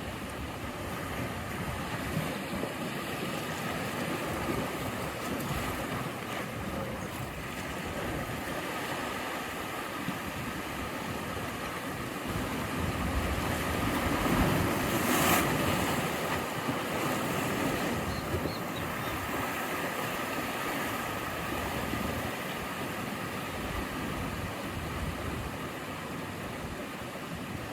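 Ocean surf: waves washing in steadily, with one larger wave swelling up and breaking about halfway through before the sound settles back.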